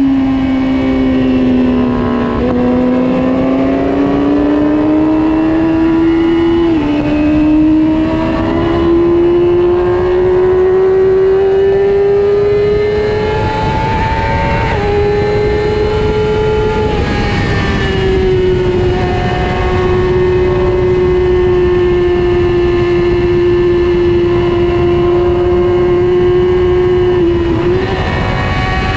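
Racing motorcycle's engine heard from the bike itself at track speed, over heavy wind rush. The engine note climbs under hard acceleration and drops at upshifts about seven and fourteen seconds in, then holds a steady note from about eighteen seconds on.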